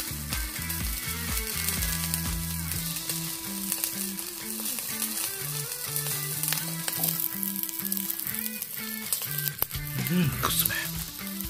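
Chicken yagen cartilage sizzling on a wire grill net over charcoal in a shichirin, a steady hiss with small crackles.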